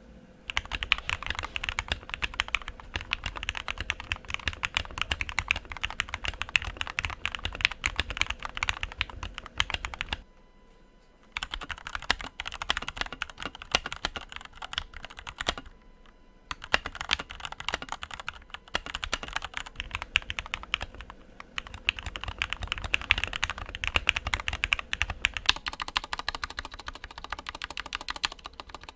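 Fast continuous typing on a Rakk Lam Ang Pro mechanical keyboard with lubed and filmed Gateron Milky Black linear switches, tuned stock stabilizers and a foam-, tape- and polyfill-dampened case. It breaks off twice briefly, about ten seconds in and again about sixteen seconds in.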